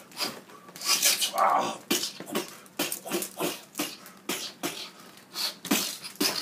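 Mouth-made fight sound effects: a person voicing a quick, irregular string of hissing, percussive whooshes and smacks, about two a second, while staging a battle between action figures.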